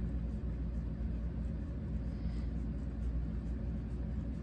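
Steady low hum made of several evenly spaced low tones, with a faint hiss above it and no distinct events.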